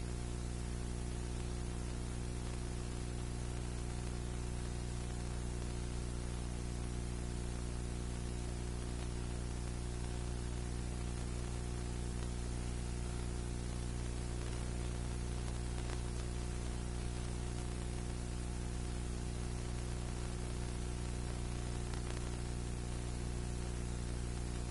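Steady hiss with a low electrical hum and its overtones, unchanging throughout: background recording noise. No wrench or bolt sounds stand out.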